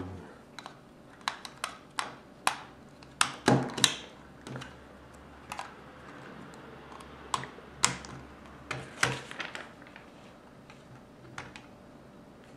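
Sharp, irregular clicks and taps of Lego plastic parts as wheels are pushed onto the axles of a Lego Speed Champions Corvette model and the car is handled, with a cluster of clicks about 3 to 4 seconds in and again about 9 seconds in.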